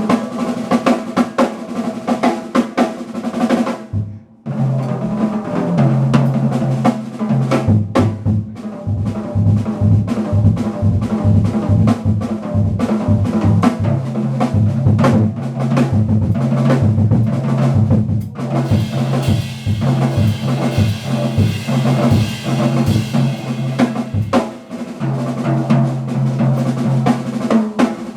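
A jazz drum kit played with snare, bass drum and cymbals, over a walking low bass line, with a brief drop in level about four seconds in.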